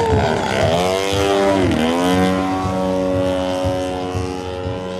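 Model aerobatic airplane's motor and propeller running. The pitch drops over the first second and a half, comes back up at about two seconds, and then holds steady.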